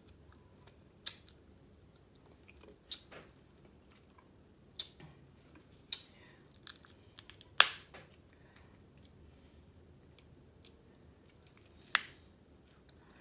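Snow crab leg shells being cracked and snapped apart by hand: a series of sharp cracks a second or two apart, the loudest about halfway through and another near the end, with soft chewing between.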